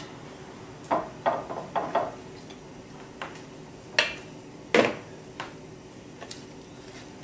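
Tableware clattering as salad is served: tongs, a glass salad bowl and plates clicking and knocking on a wooden table. A quick run of light clicks comes about a second in, then two louder knocks about four and five seconds in.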